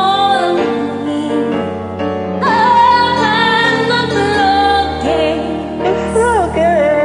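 A woman singing a slow song with held, wavering notes over a karaoke backing track of sustained chords.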